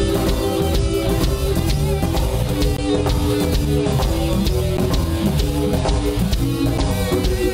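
Live blues band playing: an electric guitar carries the melody with held, ringing notes, over bass guitar and a drum kit keeping a steady beat.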